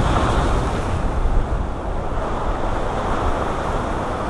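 Ocean surf breaking and washing against the rocks of a jetty, a steady rushing noise, with wind rumbling on the microphone.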